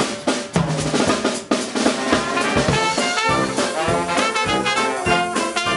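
Live Dixieland jazz band. The drum kit plays bass drum and snare strokes, then trumpet, clarinet, saxophone and trombone come in together a couple of seconds in, playing ensemble over the drums.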